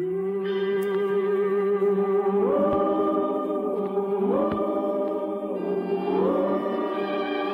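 Choir singing long held chords, with voices gliding up into a higher held note three times.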